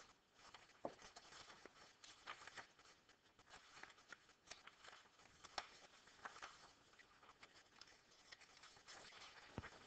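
Near silence with faint rustling and soft clicks of paper sheets being leafed through, and a slightly sharper click near the end.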